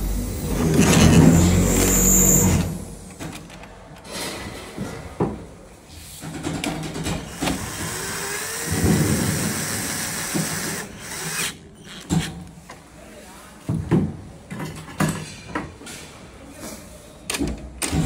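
Cordless drill driving screws through a mortise lock's steel faceplate in two short runs, one spinning up in pitch. Scattered clicks and knocks of metal lock parts being handled.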